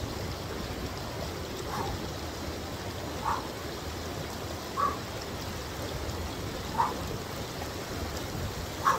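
Steady rush of a stream, with an animal's short chirp sounding five times about every one and a half to two seconds.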